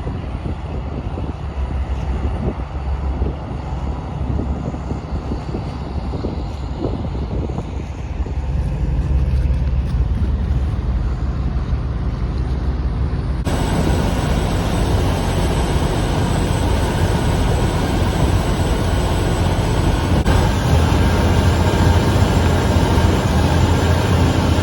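Steady low rumble of a running engine or traffic, with no speech. About halfway through, the sound changes abruptly to a brighter, noisier rumble.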